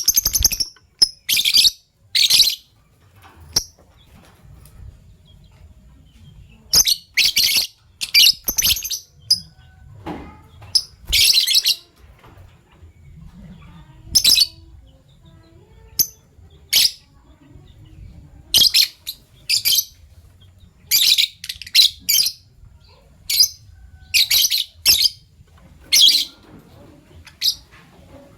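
Fischer's lovebirds chirping: short, sharp, high-pitched calls given in quick clusters of two to four, with pauses of a second or more between clusters.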